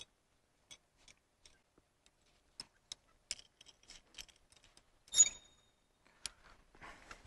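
A metal carabiner and dynamic rope being handled while a barrel knot is tied: scattered faint clicks and ticks, with one louder metallic clink about five seconds in that rings briefly.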